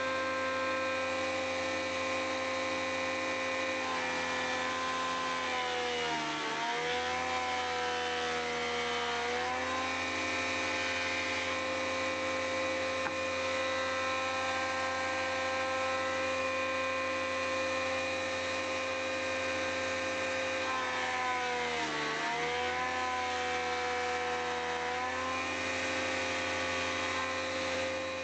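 Woodworking machine spinning a stack of three 8 mm slot cutters, running steadily. Twice its pitch sags for a few seconds and then recovers, as the cutters bite into a cabinet side panel to mill a handle groove.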